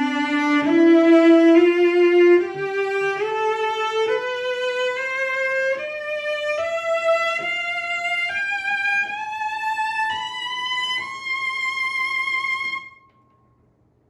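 An 1840s Mittenwald cello played with a bow, climbing note by note up a scale into its high register with a slight vibrato. It ends on a held high note that stops about 13 seconds in.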